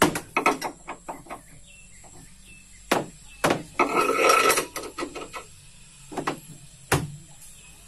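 Irregular strikes on wood, as of hand hammering during a wooden boat build, with a rasping burst of about a second near the middle.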